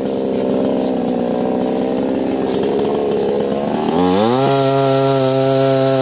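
HP 60cc two-stroke gasoline chainsaw running at a rough, uneven idle. About four seconds in it is revved sharply to full throttle and held at a steady high pitch as the chain goes into a tree branch.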